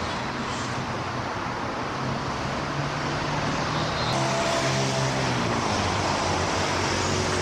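Steady rumble of road traffic. About four seconds in, the sound cuts to a brighter machine whir whose tones slide down in pitch.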